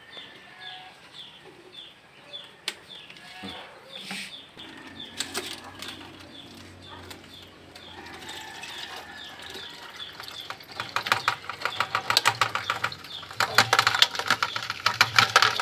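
A thin plastic bottle being handled, crinkling and crackling in dense clicks that grow loud in the second half. Before that, short high chirps repeat about two or three times a second from poultry in the background.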